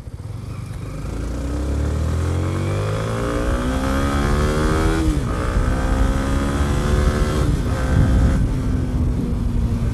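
Motorcycle engine accelerating hard from low revs and rising in pitch through the gears, with upshifts about five seconds in and again about seven and a half seconds in, then running steadily at speed.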